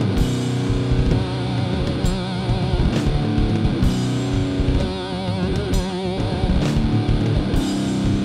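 Heavy rock music: guitar with sustained, wavering notes over drums, with sharp cymbal-like hits every second or so.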